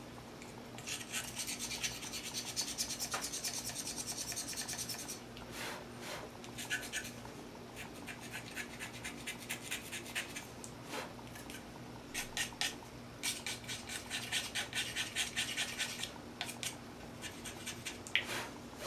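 A small hand tool scraping and rubbing over unfired greenware clay as a mug is cleaned up, in quick back-and-forth strokes. There are two long runs of strokes, one from about a second in and one near the last third, with shorter scratches in between.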